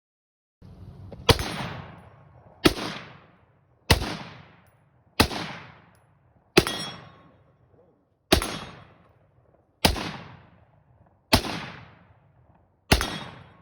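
AR-15-style pistol firing nine single semi-automatic shots at a slow, steady pace, about one and a half seconds apart. Each shot trails off over about a second.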